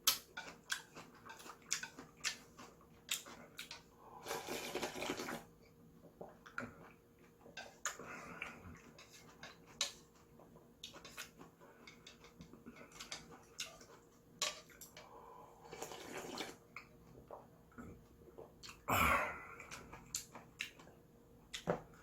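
Close-miked eating of instant ramyun: wet mouth clicks and chewing throughout, broken by about four longer slurps of a second or so each.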